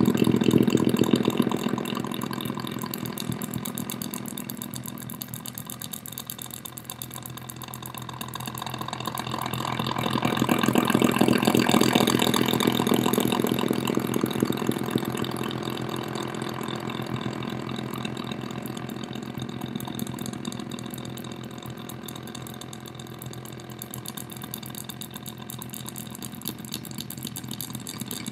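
Electronic noise made by a solar cell picking up the flicker of strobe lights, run through distortion and delay pedals to an amplified speaker: a dense, rapid pulsing buzz over a steady low hum. It swells louder around ten seconds in and slowly eases off again as the strobes are adjusted.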